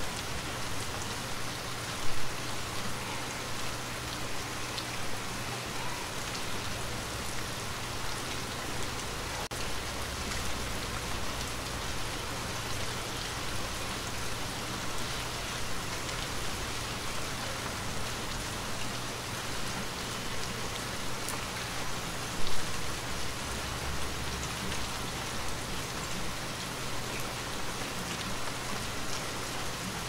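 Steady rain pattering on a surface, with individual drops heard through it. Two brief louder hits stand out, one a couple of seconds in and another about twenty seconds later.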